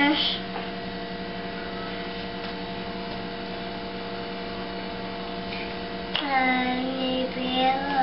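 A toddler's voice singing a drawn-out, wavering sound for about two seconds near the end, over a steady electrical hum; a short vocal sound at the very start.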